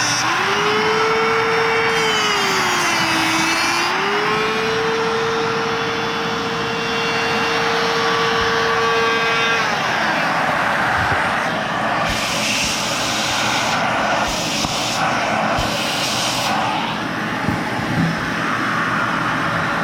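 Dremel rotary tool with a cutting wheel running at high speed in a steady high whine. Its pitch sags and recovers as the wheel bites into the Surface Pro 3's resin case and metal screw tab. About ten seconds in the whine slides down in pitch and gives way to rough grinding and scraping noise with bursts of hiss.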